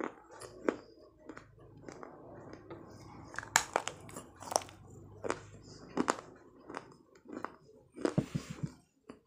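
Pieces of baked clay being bitten and chewed in the mouth: a run of sharp, irregular crunches, with the loudest ones in the middle and near the end.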